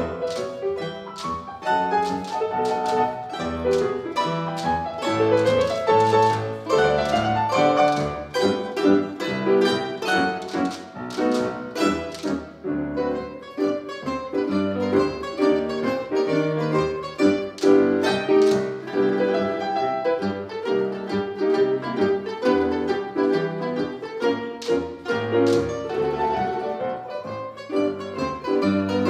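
Ensemble of domras playing quick plucked notes in a lively piece, with piano accompaniment.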